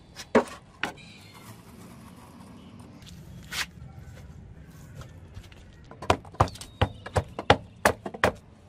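Sand being packed into a wooden casting box with a hand rammer for a sand-casting mould: a couple of sharp knocks early, one near the middle, then a run of about eight quick knocks, roughly three a second, in the last third.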